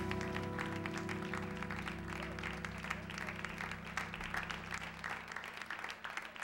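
A jazz trio's last chord on keyboard, upright bass and cymbals ringing out and fading away over the first few seconds, with audience applause going on throughout.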